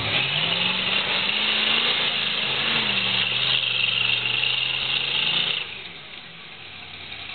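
Mud-bogging Jeep's engine revving hard as it churns through a mud pit with its tyres spinning. The revs climb quickly at the start, hold high, then drop away abruptly about three-quarters of the way through as the driver lets off.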